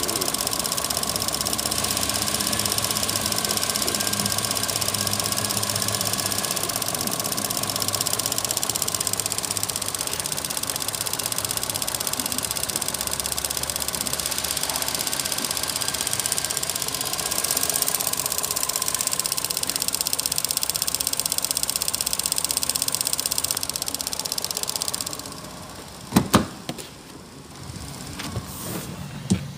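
Holden Cruze 1.8-litre Ecotec four-cylinder engine idling steadily, heard from just above the open engine bay. Near the end the engine grows fainter and two sharp knocks sound close together, then one more.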